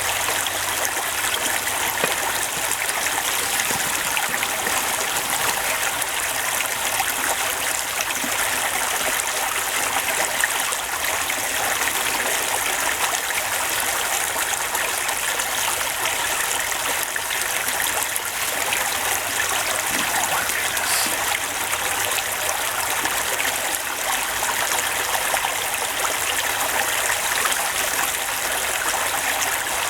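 Steady, even rushing noise, unchanging throughout.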